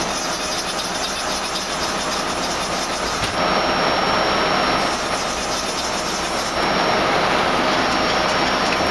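Ameri Seiki TC-4L CNC lathe running with its tool turret moving: a steady machine noise with a faint high whine. The noise changes in tone about three and a half seconds in and grows louder near seven seconds.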